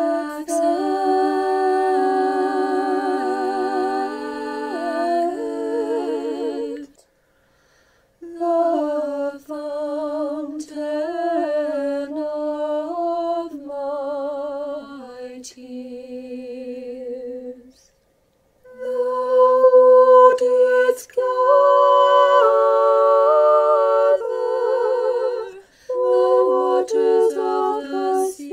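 Choir singing Orthodox liturgical chant a cappella in several-part harmony, with vibrato on the held notes. The phrases stop for short silences about seven seconds in and again about eighteen seconds in.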